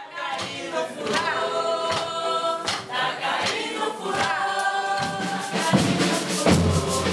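Ciranda music: a sung melody, with a deep drum beat coming in about five and a half seconds in.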